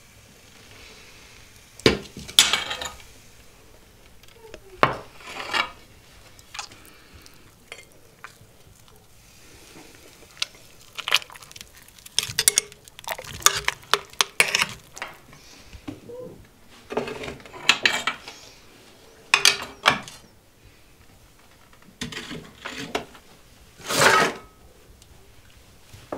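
A cast-iron pot scraped and clanked over the hearth of a wood-fired masonry stove with a long-handled oven tool, and a metal fork clinking against the pot as boiled sausage is turned in its water. Sharp knocks and short scrapes come in scattered clusters.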